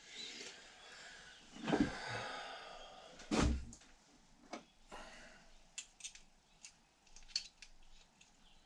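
Hand work on transmission parts at a workbench: a rustling scrape, a knock a little under two seconds in and a heavier knock about three and a half seconds in, then scattered light clicks and taps of small parts being handled.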